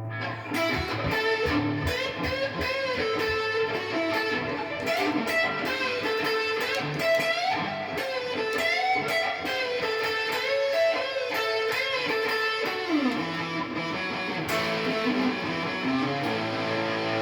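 Electric guitar playing a lead solo line up the neck, picked notes with frequent string bends that rise and fall back, and a slide down in pitch near the end.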